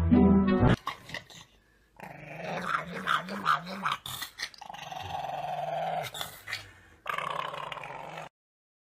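Music cuts off within the first second. From about two seconds in, a pug growls in long, wavering grumbles, in a few stretches, and stops abruptly near the end.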